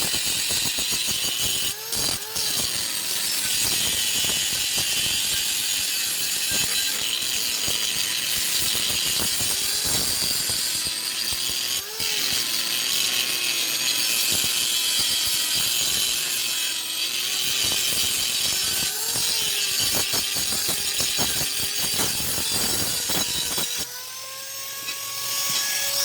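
Angle grinder grinding steel. The loud grinding hiss eases briefly a few times, and near the end the motor's pitch climbs as it runs free off the work.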